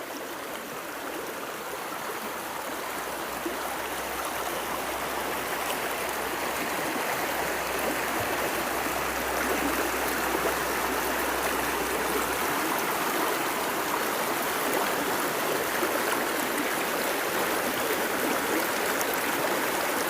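River water flowing: a steady rush that grows gradually louder.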